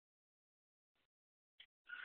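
Near silence, broken by two faint short clicks in the second half and a faint brief rustle just before the end.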